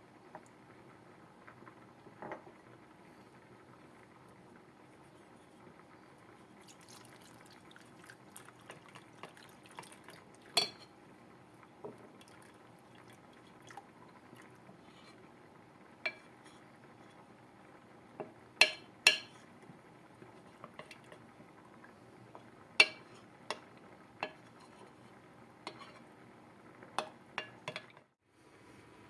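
Scattered sharp clinks of kitchen utensils against glass and dishes, a dozen or so at uneven intervals, over a steady low hum.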